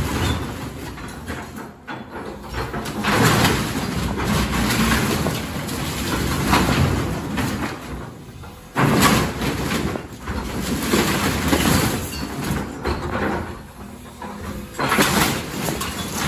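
Excavator demolishing a building's wall: crashing and cracking of breaking wood, metal and debris over the steady noise of the machine. There are five or so loud crashes, a few seconds apart.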